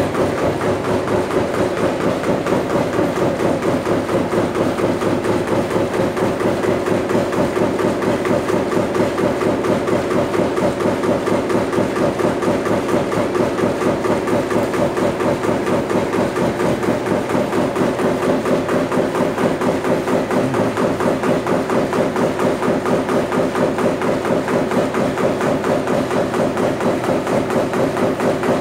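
Sawdust briquetting machine running, its press pounding in a fast, steady rhythm over a continuous drone from its drive.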